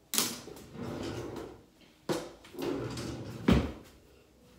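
Things being handled and set down on a counter: two bouts of clattering and rustling, one at the start and one about two seconds in, the second ending in a dull thump.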